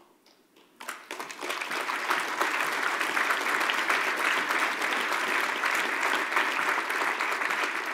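Audience applause that starts about a second in, holds steady, and begins to fade near the end.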